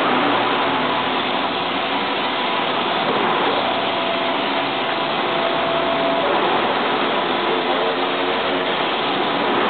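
Fina 320Q wide-format inkjet printer running as it prints: a steady machine hiss and whir, with a faint motor whine that dips and rises twice as the print-head carriage sweeps across the media.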